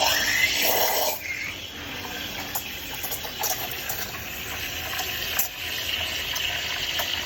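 Espresso machine steam wand frothing milk in a jug: a steady hiss and gurgle, loudest in the first second or so.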